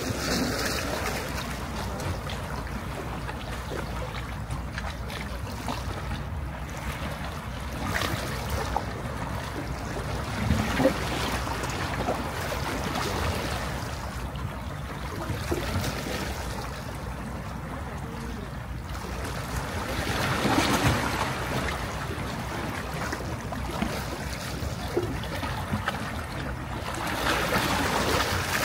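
Sea waves washing onto a beach, the noise of the surf rising and falling in slow swells over a steady low rumble.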